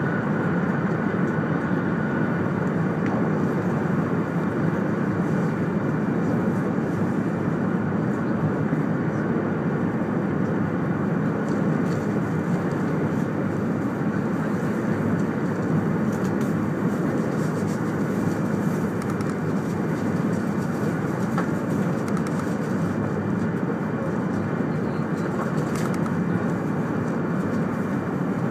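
200 Series Shinkansen running at speed, heard inside the passenger car as a steady, even rumble.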